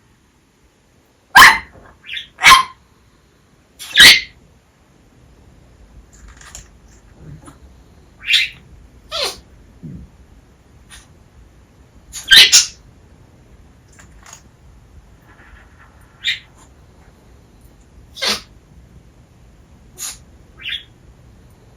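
African grey parrot sneezing: about ten short, sharp sneezes at irregular gaps. The owner can't tell whether the bird is mimicking a human sneeze or has a cold.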